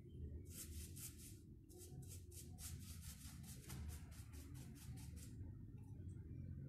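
Faint scratchy strokes of a paintbrush scrubbing PVA paint onto a rough wooden cable spool, about four or five strokes a second, with a short pause, stopping a little after five seconds in.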